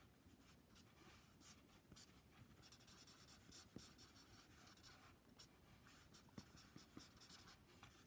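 Faint scratching of a yellow Prismacolor marker's felt tip on sketchbook paper, in many quick, rough colouring strokes.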